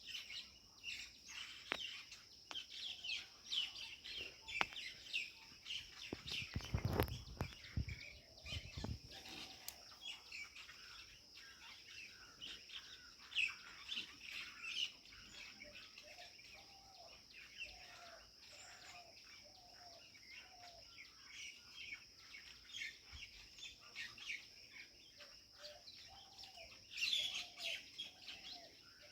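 Many small birds chirping and twittering over a steady high-pitched hiss. There is a low thump about seven seconds in. Runs of a lower, repeated call come in the middle and again near the end.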